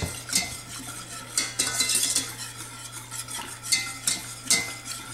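Wire whisk stirring a cream sauce in a stainless steel saucepan, a quick, irregular clatter of metal scraping and tapping against the pan.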